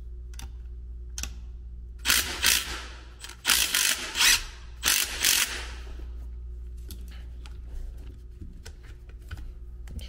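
Milwaukee M12 cordless driver run in three short bursts, a few seconds in, on the bolt of a blower motor's mounting band, with a few small clicks of the bit and bracket and a steady low hum underneath.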